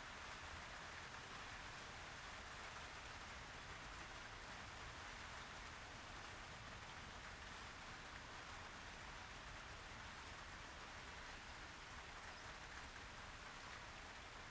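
Faint, steady hiss of noise, even throughout, with no distinct events.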